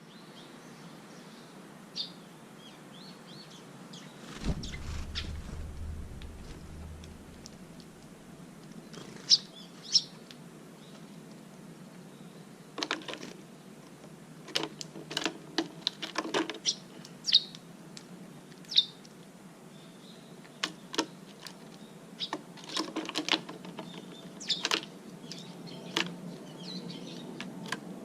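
Small birds chirping now and then, with short scattered clicks and knocks, more frequent in the second half.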